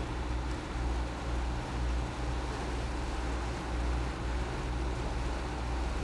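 Wind and water rushing as a catamaran moves across choppy sea, over a steady low rumble.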